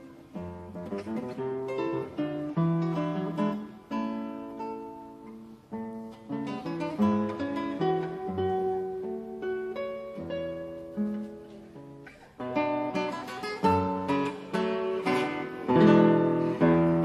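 Solo classical guitar playing a waltz: a plucked melody over bass notes and chords, growing louder and fuller about twelve seconds in.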